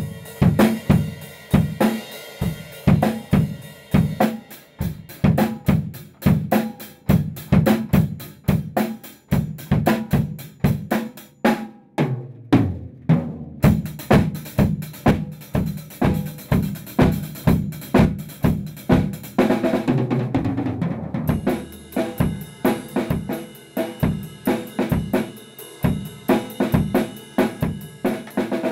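Acoustic drum kit played in a steady beat of bass drum and snare hits. From about two thirds of the way through the playing gets busier, with cymbals ringing over the hits.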